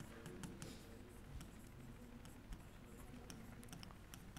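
Faint irregular ticks and light scratches of writing, as a formula is written out.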